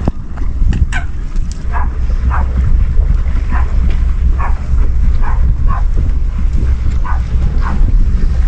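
A dog yapping over and over, short sharp yips about twice a second, over a steady low rumble.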